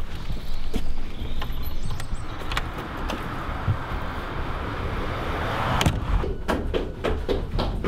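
A house's front door being opened and then shut, with small clicks of the handle and lock at the start and a sharp latch click near six seconds in, followed by a quick run of light knocks.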